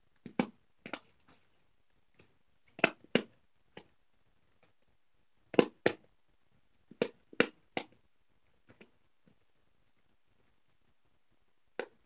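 Silicone buttons of a simple dimple fidget toy being pushed in, popping about a dozen times at uneven intervals, several in quick pairs and threes, with a quiet gap before a last pop near the end.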